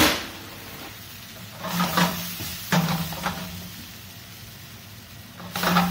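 A steel sauté pan clanks down onto a gas range's cast-iron grate, then rattles and scrapes on the grate in three short bursts as it is moved on the burner.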